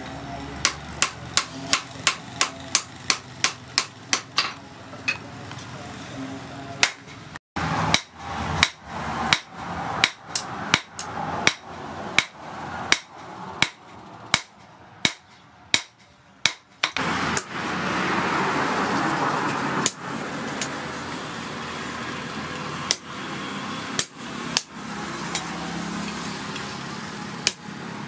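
Hand hammer striking a hot steel knife blade on a steel post anvil, sharp ringing blows at about three a second at first, then slower and sparser. About halfway through a steady rushing noise rises behind the blows.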